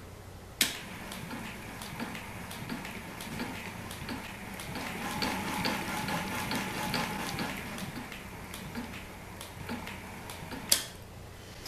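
Electric-motor-driven rewind mechanism of a band organ turning its large spoked pulley through an orange urethane round belt, running with a steady mechanical whirr and light ticking. A sharp click comes about half a second in and another near the end.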